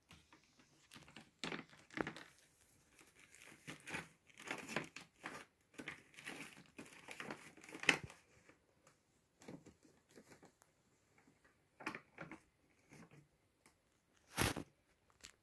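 Fabric rustling and scratching from two kittens play-fighting on a cloth cat bed: irregular crinkles and scrapes, busiest in the first half, with one louder scrape about a second before the end.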